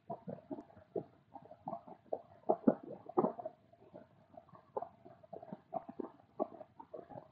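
A man's voice murmuring quietly and indistinctly in short, broken bursts.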